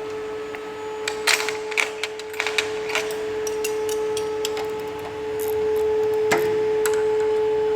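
Spanners clicking and tapping on the hydraulic pipe fittings of a two-post lift's cylinder, a quick cluster of sharp metal clicks in the first few seconds and a few more later, over a steady hum.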